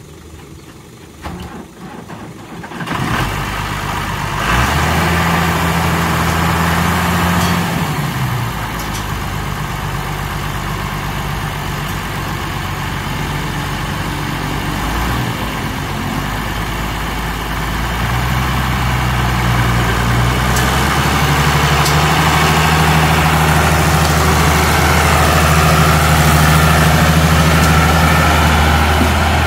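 Heavy diesel engine running loudly, coming in about three seconds in. It revs up briefly, drops back to a steady run, then pulls at higher revs and grows louder through the second half.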